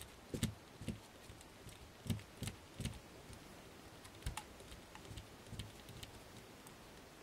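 Faint clicks and light knocks of a hex driver and plastic parts as a screw is tightened through the top link's eyelet into an Axial SCX10 axle. Several come in the first three seconds, a sharper one about four seconds in, then they thin out.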